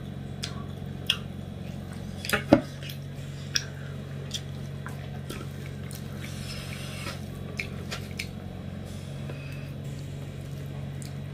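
Rice and fish curry being mixed by hand on a steel plate: soft wet squishing with scattered clicks and taps, the loudest knock about two and a half seconds in. A steady low hum runs underneath.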